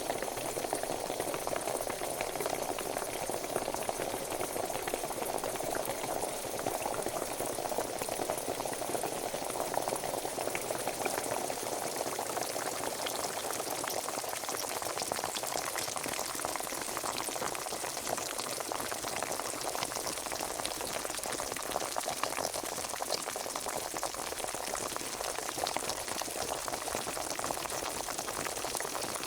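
Pot of water at a rolling boil: steady bubbling and popping.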